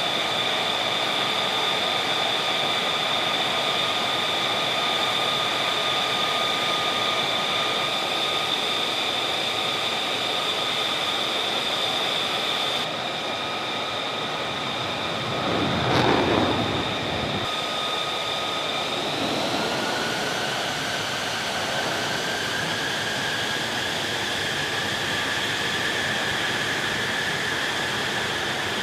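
F-35 Lightning II jet engine whining steadily in several high tones over a rushing noise. About sixteen seconds in comes a brief louder whoosh, and later the whine's pitch slowly rises.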